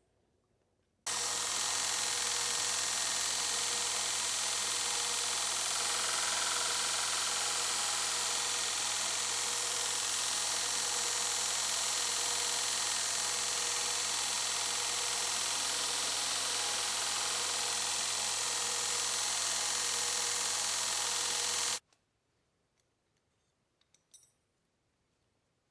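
A forge running steadily during the blade's heat treat: an even rushing hiss with a low hum underneath. It starts suddenly about a second in and cuts off suddenly about three seconds before the end.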